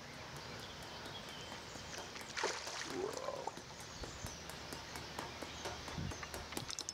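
Steady lakeside outdoor ambience with a single splash in the lake water about two and a half seconds in, followed by a short sliding call.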